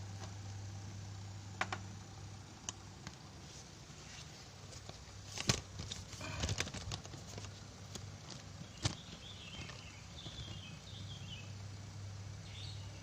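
Low steady hum from a running Polytron boombox whose cleaned cooling fan no longer makes its growling noise, with scattered clicks and knocks. Faint bird chirps come in about two-thirds of the way through.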